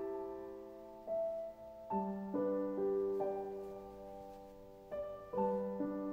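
Slow background piano music: single notes and chords struck and left to ring out, a new chord every second or two.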